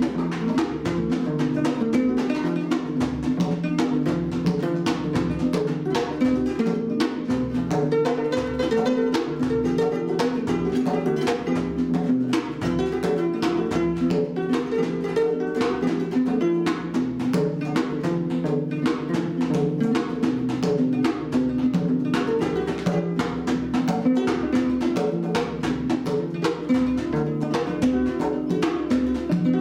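Kora and djembe playing together: fast, flowing plucked kora patterns over a steady stream of hand-struck djembe beats.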